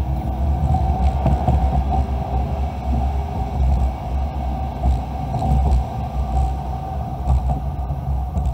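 Car driving along a street, heard from inside the cabin: a steady low rumble of engine and road noise that swells and eases a little.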